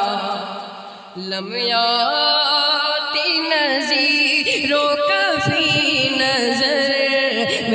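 Male voice chanting a naat in long, drawn-out melodic phrases with wavering ornamented turns; the voice fades briefly about a second in, then comes back in full.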